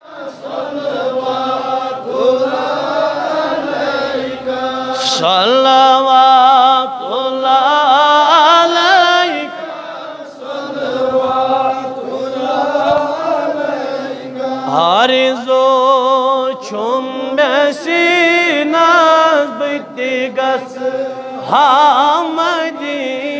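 A man singing a devotional salam to the Prophet, in long, ornamented held notes that waver and glide between pitches, with short breaths between phrases.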